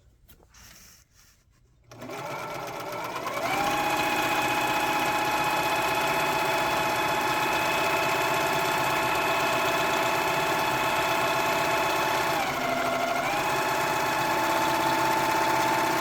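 White Power Lock differential serger stitching and trimming a fabric edge. It starts about two seconds in and speeds up to a steady high-speed run. It dips in speed briefly near the end, picks up again, then winds down.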